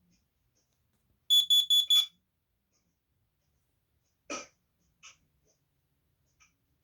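Kidde carbon monoxide alarm sounding its test: four quick, high, loud beeps about a second in, the four-beep pattern of a carbon monoxide alarm. A short knock follows a couple of seconds later.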